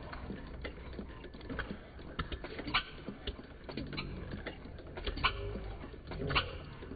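Model single-cylinder steam engine running: a stream of light, irregular clicks and taps from its moving parts, a few sharper ones standing out, over a low steady rumble.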